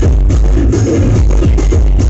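Loud electronic dance music with heavy bass and a steady beat, played through a DJ sound system.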